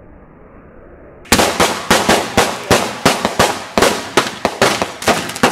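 Fireworks going off in a rapid, irregular string of sharp, loud bangs, about four a second, starting suddenly about a second in.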